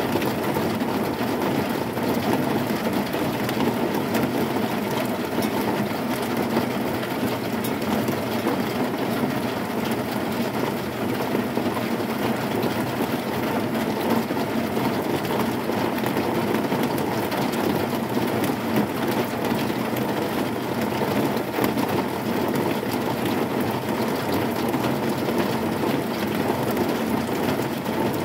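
Heavy rain falling on a corrugated zinc roof sheet: a steady, dense patter of drops over a constant rushing din.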